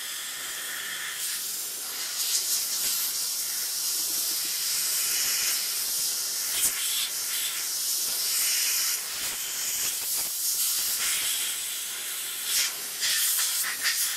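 Dry steamer nozzle hissing steadily as it is worked into the crevices of a bed frame, the hiss swelling and dipping as the nozzle moves. A light knock comes about halfway through.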